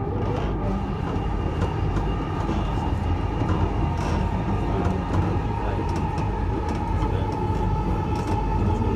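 Dubai Metro train running, heard from inside the carriage: a steady low rumble of wheels on track with a steady motor whine over it.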